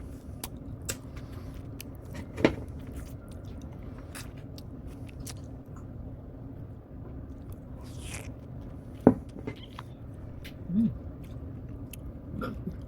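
Someone eating cake close to the microphone: scattered soft clicks and smacks of chewing, the sharpest about two and a half and nine seconds in, over a steady low hum.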